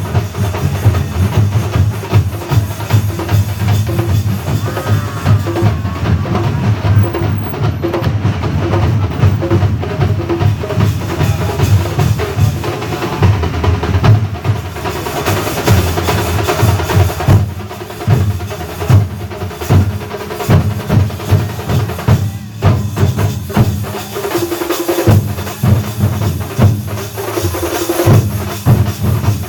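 Thambolam drum band from Kerala playing a fast, dense drum rhythm with deep, heavy drum strokes.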